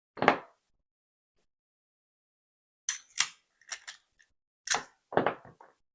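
Sharp clicks and clacks of a small metal lock and tools being handled: one knock just after the start, then a string of about eight quick clicks from about three seconds in.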